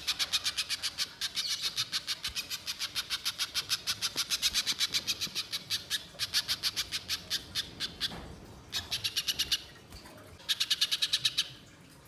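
Little spiderhunter giving its long rapid chatter, a fast string of sharp high notes at about eight a second. It runs on for most of the first eight seconds, then comes in two short bursts near the end.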